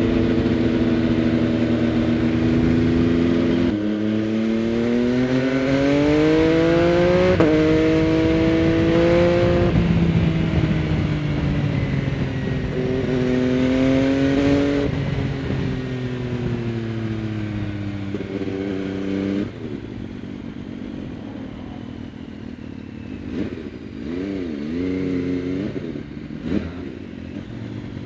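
MV Agusta Dragster 800 RR's three-cylinder engine through a Fresco Trio Corse exhaust with dB-killer, heard from the rider's seat. It pulls hard with the pitch climbing, steps down sharply at each of two quick upshifts, winds down and drops in level as the throttle closes, then gives a few short throttle blips near the end.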